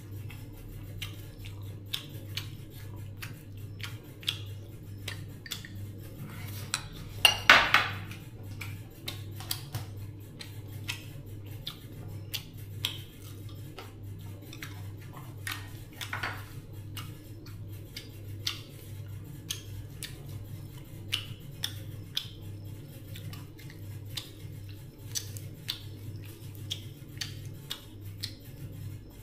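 Dishes and utensils clinking and tapping: scattered light clinks throughout, with a louder clatter about seven seconds in, over a steady low hum.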